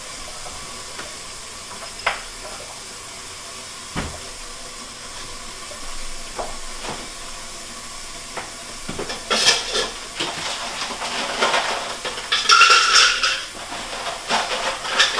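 Ice cubes and dishes clattering off in the kitchen, in irregular bursts starting about nine seconds in, the loudest a second-long rattle near the end. Before that there is a steady low hiss with a couple of single knocks.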